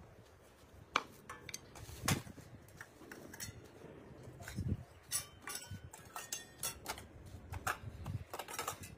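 Stainless steel plates clinking and clattering as they are taken one at a time off a stack and set down, in irregular sharp knocks.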